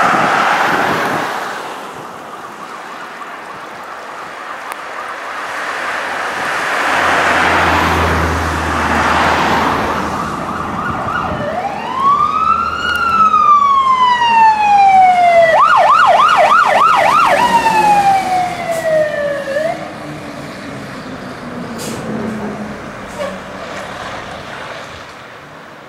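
Vehicles passing on the road, then a fire engine's electronic siren: a wail that rises and falls, a quick burst of yelp cycles, and a second falling wail that stops suddenly. The truck's engine note drops in pitch as it goes by.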